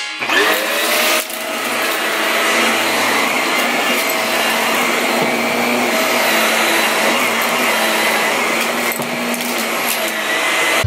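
Upright vacuum cleaner switched on: its motor whine rises as it spins up in the first second, then it runs steadily.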